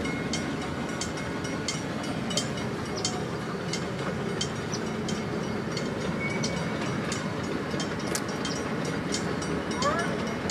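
Freight cars of a 16-inch gauge grand scale train rolling past on the track: a steady rumble of wheels on rail with sharp clicks, about two to three a second, as the wheels cross the rail joints.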